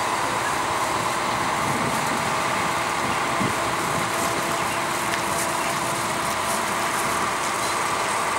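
Mobile crane's diesel engine running steadily while the crane lifts a load, with a faint steady hum.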